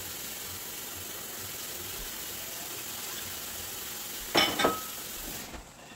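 Pot of sorrel-leaf soup with smoked fish simmering on the stove with a steady hiss after water has been added. About four and a half seconds in, two quick knocks, then the hiss cuts off suddenly.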